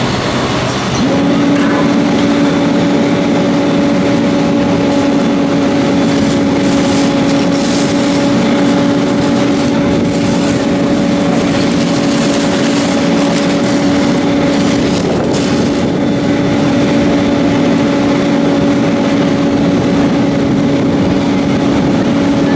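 A fire engine's pump engine runs at a steady speed, giving a constant hum that comes in about a second in and holds level. Under it is a continuous rush of hose water spraying onto the smouldering trailer.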